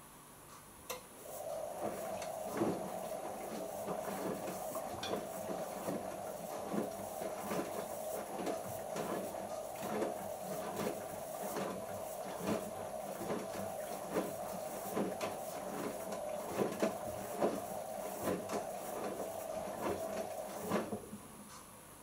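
Siemens iQ front-loading washing machine in the early wash stage, its drum turning with shirts tumbling inside: a steady tone with irregular knocks, two or three a second. It starts with a click about a second in and stops abruptly near the end.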